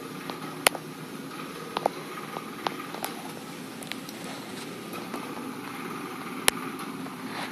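Steady low background hum, with a few sharp clicks scattered through it. The loudest click comes under a second in and another about six and a half seconds in.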